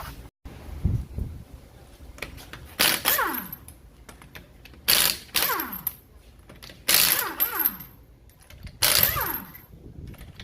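Impact wrench loosening a car wheel's 21 mm lug nuts, one nut at a time: four short bursts about two seconds apart, each ending in a falling whine as the tool spins down.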